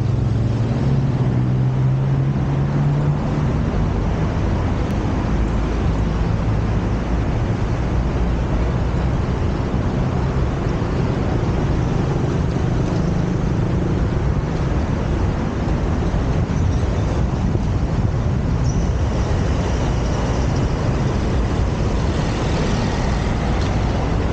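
Steady road-traffic noise of passing cars and buses, with an engine's low hum standing out in the first few seconds.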